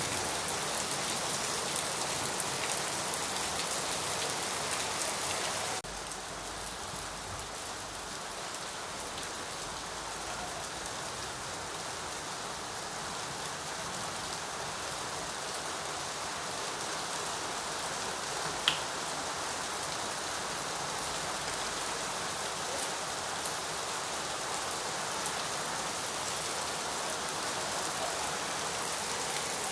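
Steady rain falling, an even patter of drops. About six seconds in the sound drops abruptly to a slightly quieter, duller texture, and a single sharp click stands out a little past the middle.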